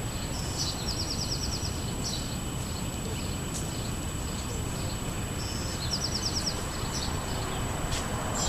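A songbird sings twice, each phrase a short note followed by a quick trill of about eight notes, over a steady low background rumble.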